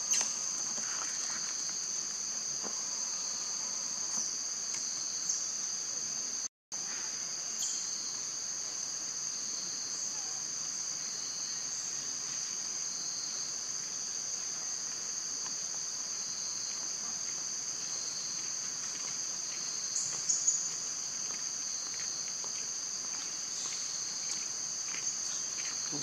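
Steady, high-pitched chorus of forest insects, unbroken except for a brief dropout about a quarter of the way in. A few faint clicks come about three quarters of the way through.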